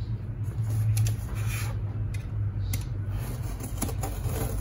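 Snap-off utility knife cutting into a cardboard box: faint scraping of the blade through cardboard and tape, with a few sharp clicks, over a steady low hum.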